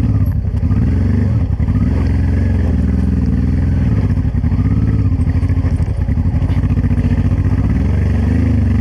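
Honda Transalp 600's V-twin engine pulling the motorcycle up a rocky dirt trail, its engine speed rising and falling several times as the throttle opens and closes.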